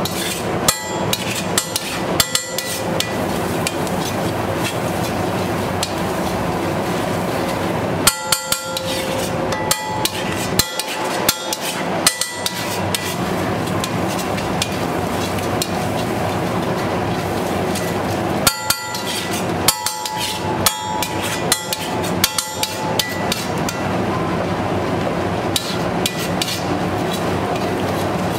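Metal spatula striking and scraping on a flat steel griddle, chopping a frying masala mixture in several bursts of rapid clanking strikes, over a steady background noise.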